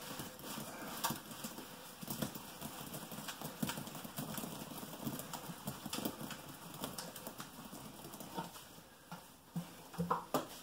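Thick wet concrete mix plopping out of a tipped plastic bucket into a countertop mold, as irregular soft plops and knocks several times a second. A few louder knocks come near the end.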